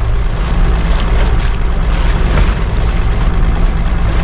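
Steady wind and water noise aboard a small fishing boat at sea: a constant low rumble with a hiss of wind and waves over it.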